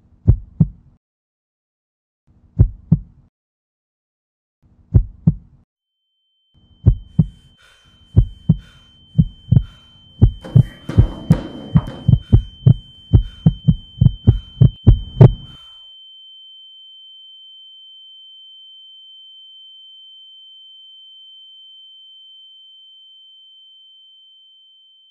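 Heartbeat sound effect: paired low thumps about every two seconds that quicken into rapid beats, stopping abruptly about fifteen seconds in. A steady high-pitched tone joins about six seconds in and carries on alone after the beats stop, slowly fading.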